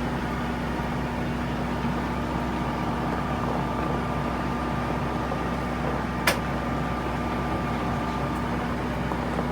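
An engine running with a steady drone and hum that does not change in pitch. A single sharp click is heard about six seconds in.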